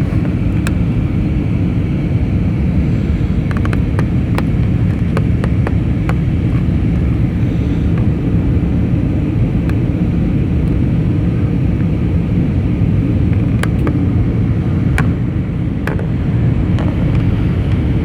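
Steady rumble of an Airbus A320neo's engines and airflow heard inside the passenger cabin in flight, with a few faint clicks.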